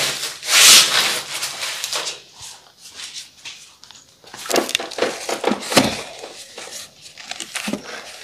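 Cardboard boxes of floor tiles scraping and knocking as they are lifted off a stack and wedged into a scooter's footboard: a loud scrape about half a second in, then a run of short knocks and rubs around the middle.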